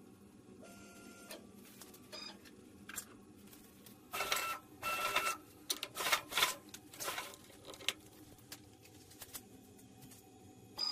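Stepper motors of a homemade automatic router lift and table-saw fence, homing the router: a faint steady hum with brief whines, then several louder short runs of motor whine between about four and seven and a half seconds in.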